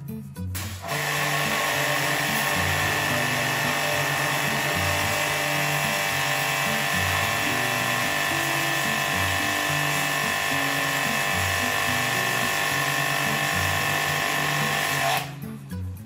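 Small electric pressure-washer pump running while its water jet sprays into a wall-mounted air conditioner's blower wheel, a steady hiss over the motor's hum. It starts about a second in and cuts off about a second before the end.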